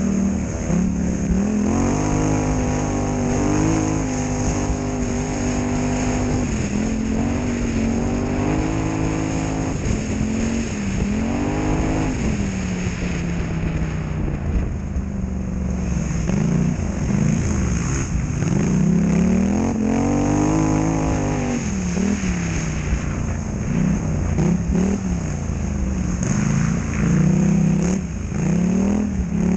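Polaris Scrambler XP1000 quad's twin-cylinder engine running hard off-road, its pitch rising and falling over and over as the throttle opens and closes.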